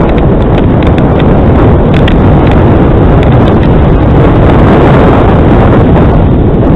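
Heavy wind buffeting the microphone of a camera mounted on a moving bicycle, with frequent rattling clicks as the bike rolls over a rough, patched tarmac path.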